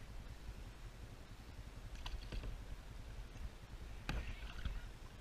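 Sit-on-top plastic kayak being paddled on calm water: a steady low rumble, with a pair of sharp knocks about two seconds in and a louder knock about four seconds in.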